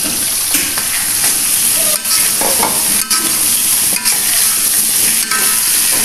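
Pea eggplants and freshly added sliced long eggplant sizzling in hot oil in a metal wok, stirred with a steel spatula. The spatula scrapes and knocks against the wok now and then.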